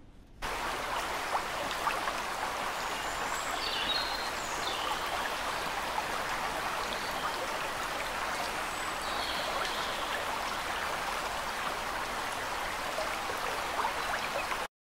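Steady rush of running water with a few faint high chirps, starting abruptly and cut off suddenly near the end.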